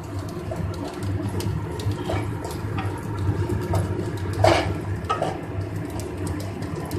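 A spatula stirring and scraping vermicelli as it is lightly roasted in ghee in a nonstick kadhai, with occasional knocks of the spatula against the pan, the loudest about four and a half seconds in. A steady low hum runs underneath.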